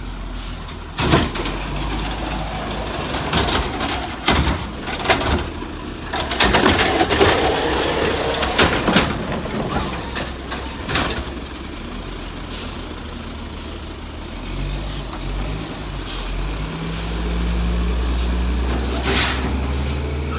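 Garbage truck's automated side-loader arm dumping a trash cart, with repeated clanks and bangs over the first half. Then the truck's engine revs up as it pulls away, with a short air-brake hiss near the end.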